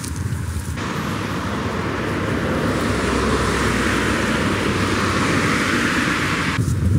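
Road traffic on a bridge: the steady tyre noise of passing vehicles, starting suddenly under a second in, growing louder and then cutting off abruptly shortly before the end.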